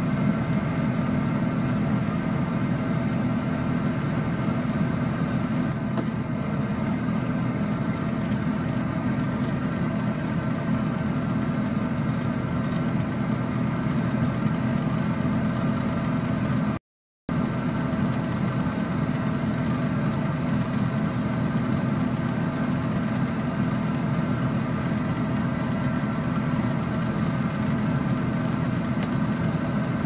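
A vehicle engine idling steadily with an even hum. It cuts out for a moment about 17 seconds in.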